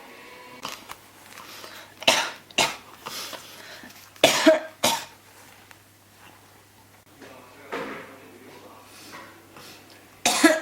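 A person coughing in repeated short bouts that do not stop: a quick pair of coughs about two seconds in, a louder pair about four seconds in, a fainter cough near eight seconds and another hard cough at the very end.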